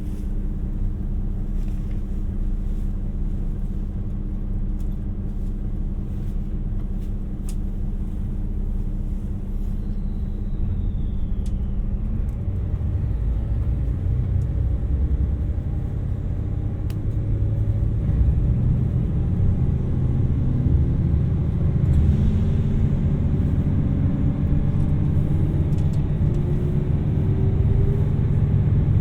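JR 2700 series diesel railcar engine running steadily at idle, then about twelve seconds in it revs up as the train pulls away. The engine note gets louder and climbs in pitch over the last several seconds.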